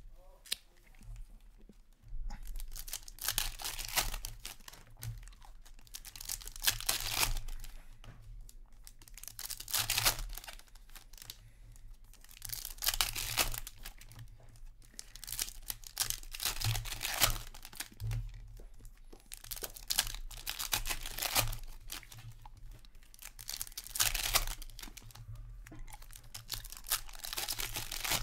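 Foil wrappers of Upper Deck Series 1 hockey card packs being torn open and crinkled by hand, one pack after another, with a burst of tearing and crinkling about every three seconds.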